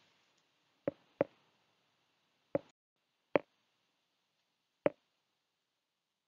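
Five short, sharp clicks at irregular intervals over a faint hiss.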